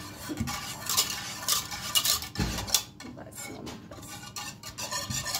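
Wire balloon whisk stirring thinned strained yogurt in a stainless-steel pot, its wires scraping and clicking against the pot in an irregular rhythm, with sharper clinks now and then.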